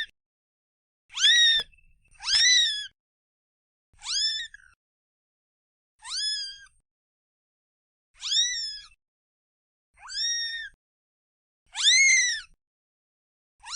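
A cat meowing over and over, about one short meow every two seconds with silence between them. Each meow is high-pitched and rises then falls in pitch.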